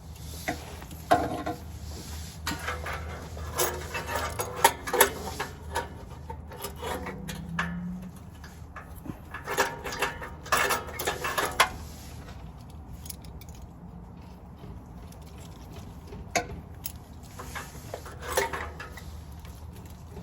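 Irregular metallic clinks and knocks of locking pliers (a vise grip) being clamped on and worked against a car's oil filter to loosen it, in clusters with pauses between, over a faint steady low hum.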